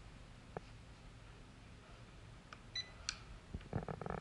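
Buttons of a UNI-T UT181A multimeter clicking as they are pressed. There is a single click early on, a short high beep from the meter's keypad tone about two-thirds of the way in, and a quick run of clicks near the end.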